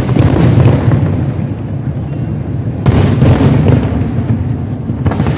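Fireworks shells bursting in the sky, booms with long rolling rumbles after each: one right at the start, another about three seconds in, and a third near the end.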